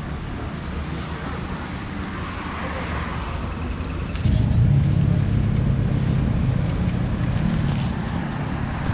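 A motor vehicle's engine running with a steady low rumble, growing louder about four seconds in and holding there.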